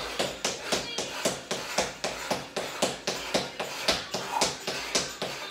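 Quick, even thuds of trainers landing on a hard laminate floor, about four a second, as a person bounces on their toes throwing uppercuts.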